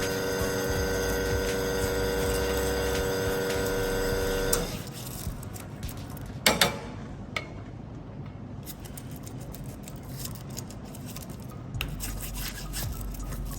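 Espresso machine's pump running with a steady hum while water flushes through the group head, shutting off suddenly about four and a half seconds in. After that come a few clinks and a loud clatter of metal parts being handled.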